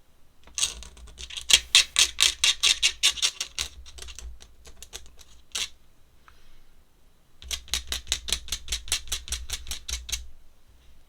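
Rapid, even clicking or tapping, about five or six a second, in two runs of a few seconds each with a single click between them, made by a drawing tool worked rhythmically at the art desk.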